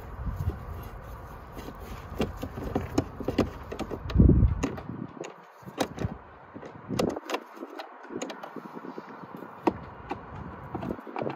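A screwdriver clicking and scraping against the hard plastic trim of a car door panel as the trim is pried loose, with a dull thump about four seconds in.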